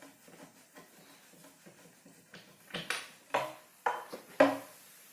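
Metal parts of a seat-suspension shock absorber clinking and knocking as it is unscrewed and handled: faint small ticks at first, then four sharp clanks about half a second apart in the second half, the last the loudest.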